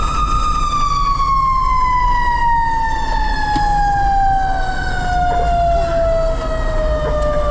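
Fire truck siren winding down, its pitch falling slowly and steadily, over the low rumble of the truck's engine, heard from inside the cab.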